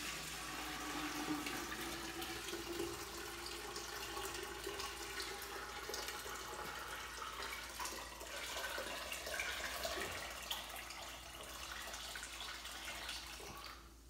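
Water pouring in a steady stream from a dehumidifier's collection bucket into the stainless-steel upper chamber of a gravity water filter, splashing into the metal tank. The pour stops about a second before the end.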